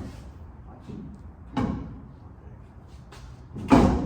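A fuel tank being shifted into place under a pickup, knocking against the frame: two short thumps, the second, near the end, the louder and deeper.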